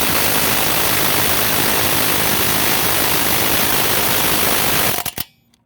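Ryobi P235 cordless impact driver hammering steadily in reverse on a car lug nut with a socket, then stopping abruptly about five seconds in. The nut, torqued to about 80 ft-lb, does not break loose.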